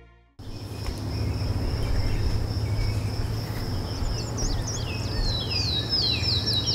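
Crickets chirping: a steady high trill over a low hum, starting abruptly just after the start, with a run of short falling chirps growing louder from about four seconds in.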